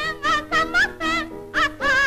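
A female soprano voice singing short notes with wide vibrato, with breaks between them, over instrumental accompaniment, in an old archival recording.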